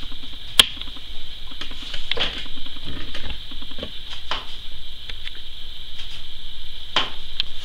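Scattered light clicks and taps of a paintbrush working in a metal watercolor palette while mixing paint, a handful of separate strokes with the sharpest about half a second in. A steady high-pitched hiss runs underneath.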